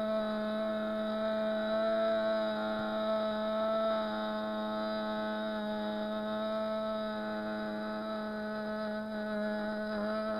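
A young woman's voice holding one long, steady sung note without a break for breath, a note-holding endurance attempt.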